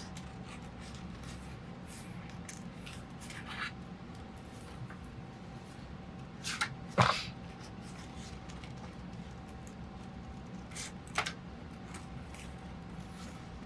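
Scissors cutting paper: a few quiet snips over a steady low hum, with one much sharper, louder sound about seven seconds in.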